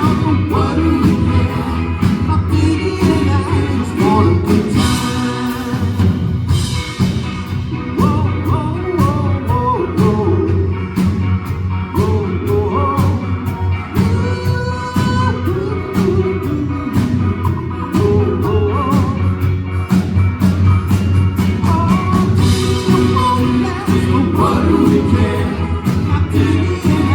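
Live pop-rock band playing with guitar, bass and drums, wordless vocal lines wavering above a steady beat, in an instrumental or backing-vocal stretch of the song.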